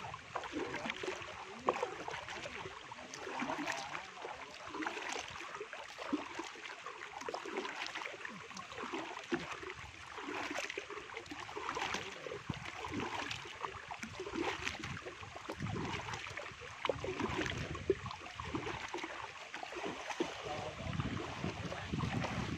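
Irregular sloshing, trickling and small splashes of muddy water, made up of many short uneven sounds with no steady rhythm.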